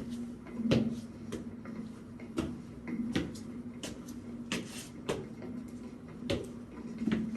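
A steady low hum that swells and fades, with irregular sharp clicks and knocks, about one or two a second.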